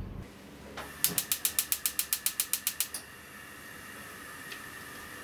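Gas hob's spark igniter clicking rapidly, about nine clicks a second for two seconds, until the burner lights. Then the gas flame burns with a faint steady hiss.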